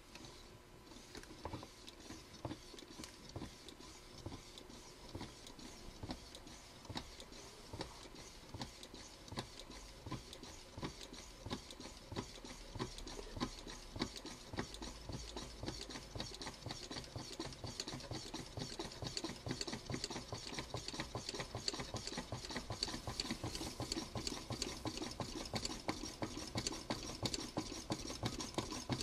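Homemade Coke-can Stirling engine running: its crank and linkage click in a steady rhythm that quickens and grows louder as the engine speeds up.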